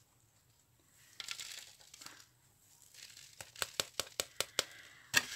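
Cardboard rustling as the glued piece is handled, then a quick run of about ten small light ticks: loose fake-snow beads dropping into a foam takeaway box as the excess is shaken off.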